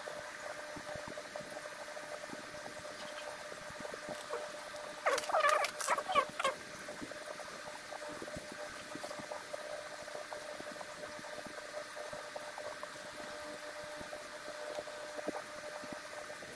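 A steady faint hum with small clicks and scrapes from a little plastic scoop filling tiny plastic capsules with cyclops paste. About five seconds in, an animal gives several short cries with wavering pitch over a second and a half, the loudest sound here.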